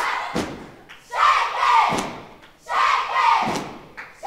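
A group of children shouting a chant in unison while stomping and clapping in a step routine. Loud chanted phrases come about every one and a half seconds, with sharp stomps or claps between them.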